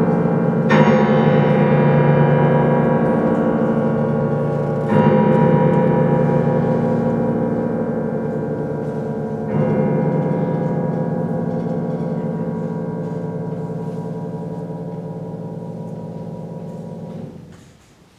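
Grand piano striking three heavy, bell-like chords about four to five seconds apart, each left ringing under the pedal and slowly dying away, imitating tolling church bells as the song closes. The ringing is damped about a second before the end, leaving quiet.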